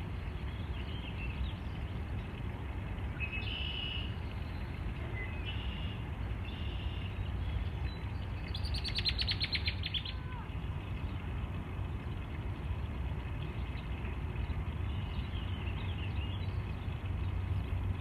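Birds giving short, high calls several times over a steady low rumble. About nine seconds in comes a fast rattling run of pulses lasting about a second and a half.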